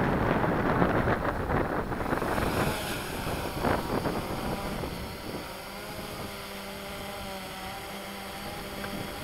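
Blade 350 QX3 quadcopter taking off: a loud rush of wind on the microphone and propeller wash at first, then the steady hum of its four motors and propellers, holding several tones as it climbs away and grows quieter.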